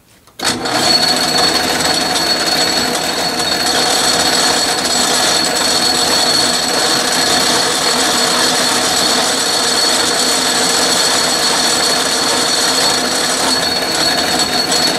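Atlas metal lathe switched on about half a second in, then running steadily with a high whine from its motor, belts and gearing, while taking a light threading cut inside an oiled steel bore.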